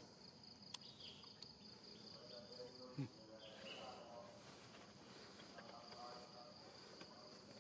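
Faint steady insect chorus, a high buzz with evenly repeating pulses, as from cicadas or crickets. A sharp click comes just under a second in, and a short low thump about three seconds in.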